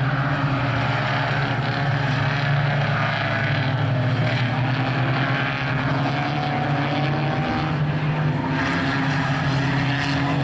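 Engines of a pack of small compact stock cars racing around a short oval track, a steady drone, with one engine note climbing slowly in pitch about six seconds in.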